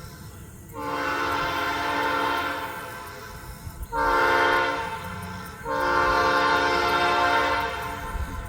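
Locomotive air horn sounding a chord of several notes in three blasts: a long one, a shorter, louder one about four seconds in, and another long one. A low rumble runs underneath.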